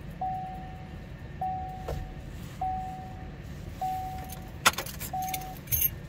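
Chevrolet Impala's dashboard warning chime sounding five times, a short single-pitch tone about every 1.2 seconds, with sharp key clicks near the end as the ignition key is turned.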